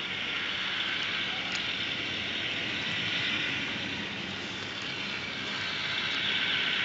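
Small speaker of a model-railway sound module playing a recorded Voith Gravita diesel engine sound, steady and thin, as the N-gauge railcar runs along the track.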